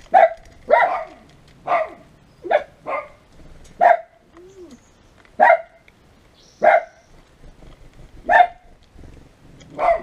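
A dog barking over and over, about ten short, sharp barks at uneven intervals.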